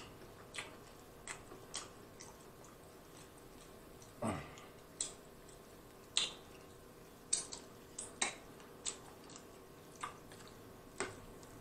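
Wet mouth and finger sounds of eating sauce-covered barbecue ribs by hand: about a dozen short smacks and clicks at irregular intervals, with one longer sound about four seconds in that drops in pitch.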